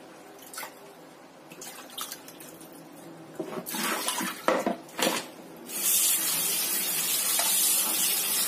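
Broccoli being rinsed at a kitchen sink: a few soft knocks and splashes as it is handled in water, then the tap is opened about two-thirds of the way in and runs steadily.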